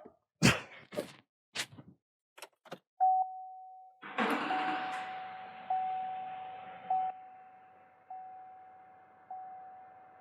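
Chevy Silverado 2500HD's warning chime dinging steadily, one ding about every 1.2 seconds, starting about three seconds in, after a few clicks and knocks. From about four to seven seconds a rush of noise runs under the chimes as the L5P Duramax diesel is cranked and started, then drops to a faint steady hum with no audible tick.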